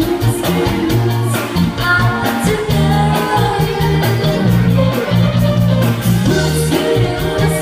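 Live band music: a woman singing over electric guitar, with a steady bass line and beat.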